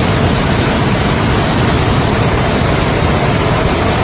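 Floodwater pouring through a dam's open gates: a loud, steady rush of falling water with no let-up.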